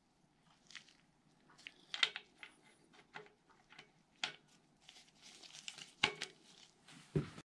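Steel roller timing chain clicking and rattling against the cam sprockets and cylinder head of a Ford DOHC 4.6 as it is worked onto the sprockets by hand: scattered sharp metallic clicks, the loudest about two seconds in and again about six seconds in.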